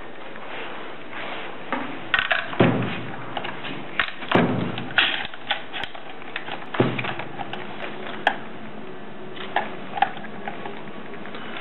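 Irregular clicks and knocks of hands handling a carousel automatic tape dispenser, working at its cutter and tape path, over a steady hiss.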